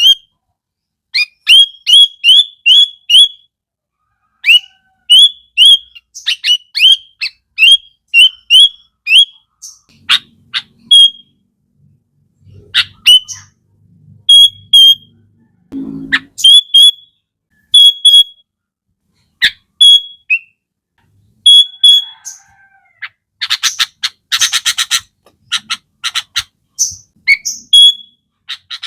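Sooty-headed bulbul (kutilang) singing: short, sharply upslurred whistled notes given in quick runs of four to six, with gaps between runs. About 23 seconds in comes a fast chattering burst of many notes.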